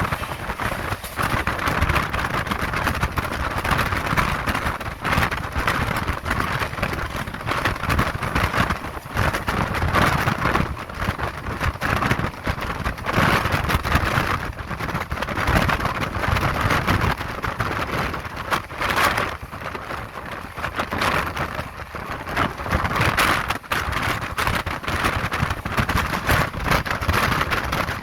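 Indian Railways express passenger train running at speed, heard on board: a steady rush of wind and wheel-on-rail noise with frequent irregular clatter of the wheels over the track.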